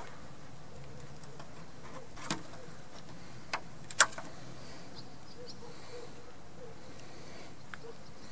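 A few short, sharp clicks from hands working small fishing tackle, the loudest about four seconds in, over a steady faint outdoor background.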